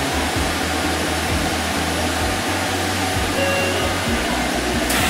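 Cabin noise of a Fukuoka City Subway Nanakuma Line linear-motor train pulling into a station and coming to a stop: a steady rush with a low rumble underneath.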